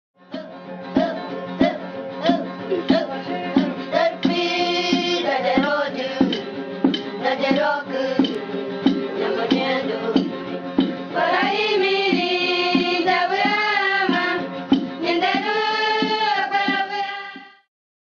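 Background music with a steady percussion beat and a singing voice that comes and goes, fading out near the end.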